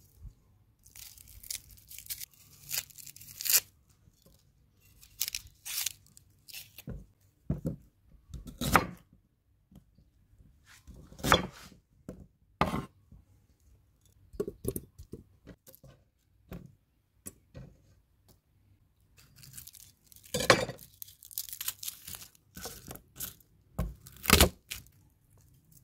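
Dry onion skin being peeled and torn off in crackly, rustling bursts, with a kitchen knife cutting through onion and knocking on a wooden board in separate sharp strikes.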